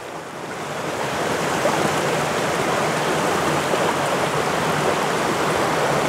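Steady rushing water of a waterfall. It swells up over about the first second and then holds even.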